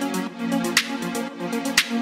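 Background music: sustained notes with a sharp beat about once a second.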